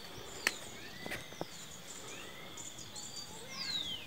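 Forest birds chirping and whistling over a steady high-pitched insect hum, with a long falling whistle near the end. A sharp click about half a second in is the loudest moment, and a few weaker clicks follow about a second in.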